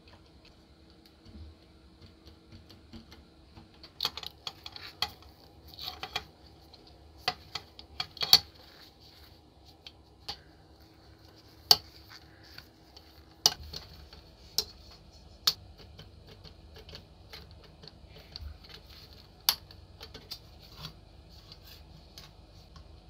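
Metal tools clicking, tapping and scraping against the rusty metal barrel and frame of an old Buntline revolver as it is pried apart. The sharp clicks come irregularly, a few of them loud, after a quiet first few seconds.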